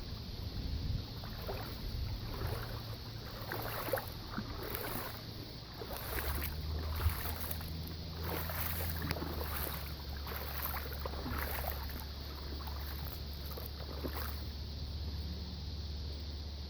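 A truck's engine running slowly as it approaches the flooded road, heard as a steady low hum that comes in about six seconds in. Short, faint higher sounds come and go throughout.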